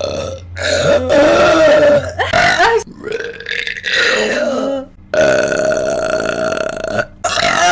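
A woman burping: several long, drawn-out burps one after another, with abrupt breaks between them.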